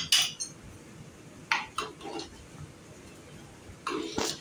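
Steel cookware clinking and knocking at a gas stove: a few separate strikes, the first with a short metallic ring, a couple more about a second and a half in, and another near the end.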